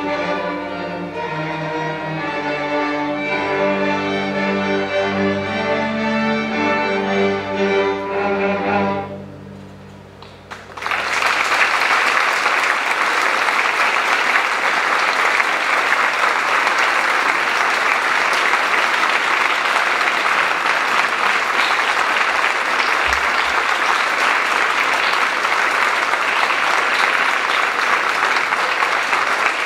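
School string orchestra of violins and cellos playing the closing bars of a piece, its last chord dying away about nine seconds in. About a second later the audience starts applauding, and the clapping goes on steadily to the end.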